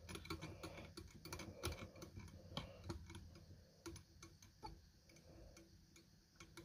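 Faint, irregular clicking and ticking of fine 8/0 tying thread being wound from a bobbin onto a fly hook held in a vise, the clicks thicker in the first few seconds and sparser after.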